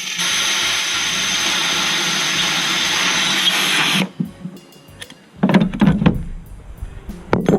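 A loud, steady hiss for about four seconds that cuts off suddenly, followed by a few knocks and clunks of tools or parts being handled.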